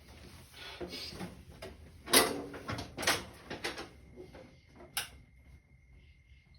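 A series of sharp knocks and clatters, with some rattling between them, of parts or tools being handled; the loudest knock comes about two seconds in.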